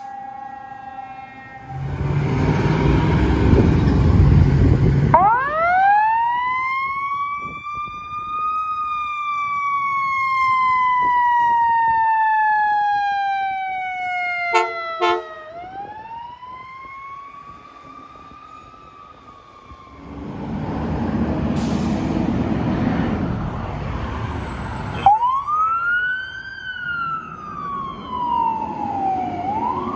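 Fire apparatus sirens. About five seconds in, a siren winds up and then slowly falls in pitch, with a few short blasts near the middle. Near the end a siren wails up and down every few seconds, and there are loud rushes of passing-truck noise between them.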